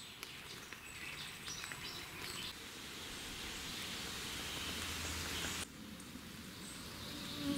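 Faint forest ambience: a quiet even hiss with a few distant bird chirps. The background changes abruptly twice.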